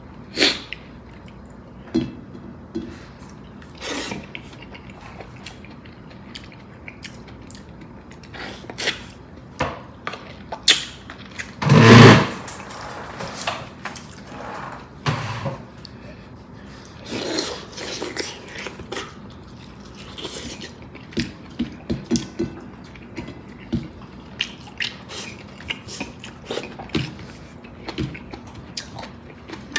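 A person eating soup: scattered small clicks of a spoon and bowl, wet slurps of broth and chewing, with one loud burst about twelve seconds in.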